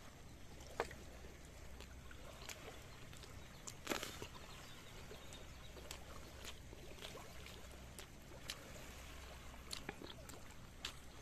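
Small waves lapping softly at the shoreline, with scattered light clicks and taps of plates, a metal spoon and a wok as a meal is eaten.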